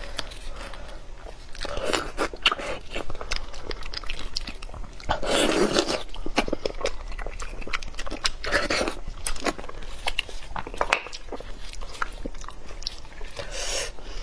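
Close-miked eating sounds of spicy-sauced beef bone marrow: sticky, wet clicks and smacks as the soft marrow is prised out of the bone with a stick and eaten, with louder slurping, chewing bursts about 2, 5, 8 and 13 seconds in.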